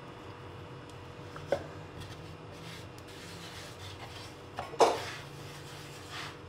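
Wooden rolling pin rolling out dough on a floured wooden chopping board: soft rubbing and rolling, with two sharp knocks on the board, the louder one about five seconds in.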